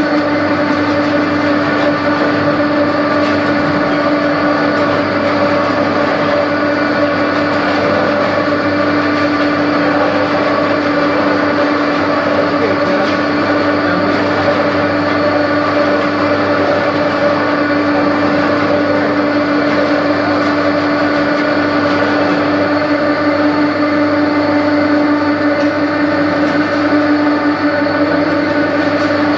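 Chicken meat-and-bone separator machine running steadily, its motor giving a constant hum over a dense mechanical noise.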